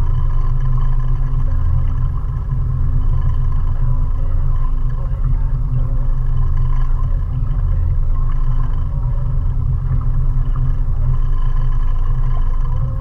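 A 20 hp outboard motor drives a small river cruiser along at steady speed. It makes a constant low drone with a faint steady whine above it.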